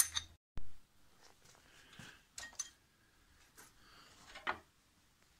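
Scattered metallic clicks and clinks of loose engine parts and tools being handled as the rocker arm shaft assembly comes off a Chevrolet 235 straight-six and is laid down, with a sharp click at the start.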